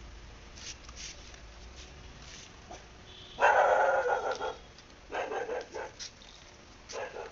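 A dog barking: a loud, drawn-out outburst about three and a half seconds in, then shorter barks after it and near the end.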